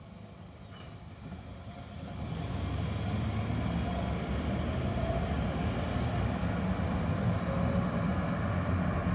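Road traffic noise: motor vehicles' engines and tyres grow louder over the first three seconds, then hold as a steady low rumble.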